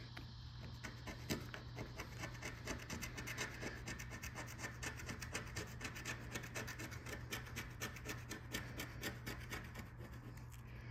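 A coin scratching the latex coating off a lottery scratch-off ticket in rapid back-and-forth strokes.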